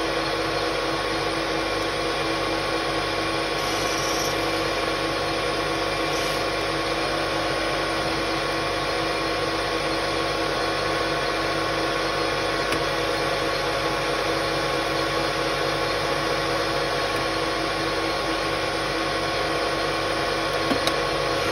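AL-1324 centre lathe running steadily at speed, its motor and headstock making an even hum with a few constant tones, with the chuck spinning the jack's spindle during a turning pass.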